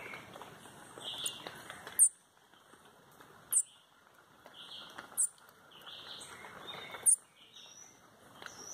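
A caged songbird under its cloth cover singing: loud, sharp, high notes falling in pitch, one every one and a half to two seconds, with softer chirps in between. It is the song style Brazilian bird keepers call "trovoada", sung under the cage cover.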